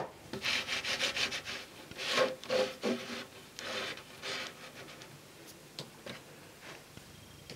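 Plastic container of freshly poured wet plaster jiggled and knocked against a wooden tabletop to level it: a quick run of scraping, rubbing strokes that slows and dies away about four or five seconds in, followed by a few faint ticks.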